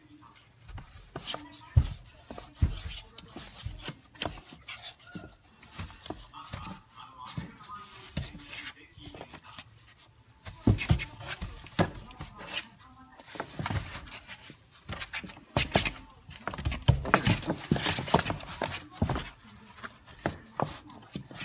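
A Maltese puppy scrabbling and wriggling inside a cardboard box: irregular scraping, rustling and knocks on the cardboard, with a hand rubbing its fur. The scuffling comes in busy spells, densest in the middle and the last third.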